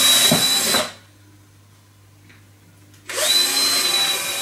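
Cordless drill with a 5 mm wood bit boring through a wooden chessboard, its motor giving a steady high whine. The first run stops about a second in, and after a pause of about two seconds the drill starts on the next hole.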